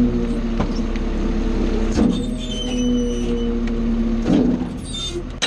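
Garbage truck's engine and hydraulics running while the packer pushes trash back through the hopper: a steady mechanical hum that wavers, with clunks about two seconds in and again just past four seconds.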